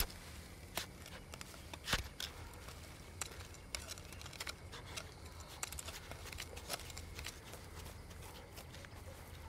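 Hand trowel digging in loose garden soil while a basil plant is set in: irregular soft scrapes and small clicks, with two sharper ones about one and two seconds in.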